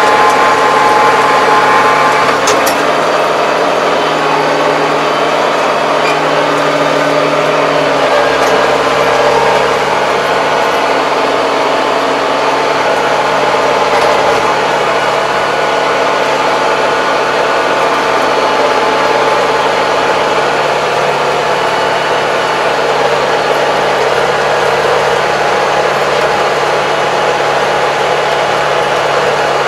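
Kubota 75 hp tractor's diesel engine running steadily under load while rotary tilling, heard from inside the cab. The engine note shifts about eight seconds in.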